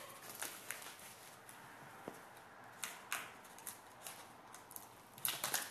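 Scissors cutting into a cardboard mailer. Scattered short snips and clicks as the blades and cardboard are worked, with a quick run of them near the end.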